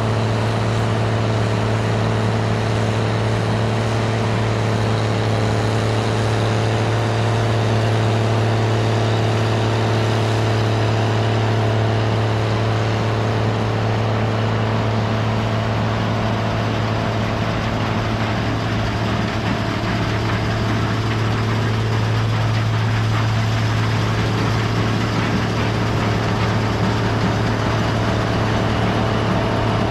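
Large farm machine's diesel engine running steadily under way, a constant deep hum with an even mechanical drone over it.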